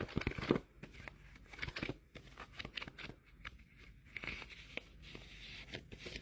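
Paper rustling and crinkling with scattered light taps and clicks: paper envelopes being handled.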